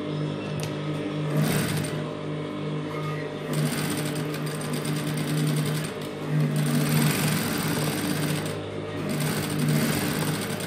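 Industrial sewing machine stitching fabric in several short runs, starting and stopping a few times over a steady low hum.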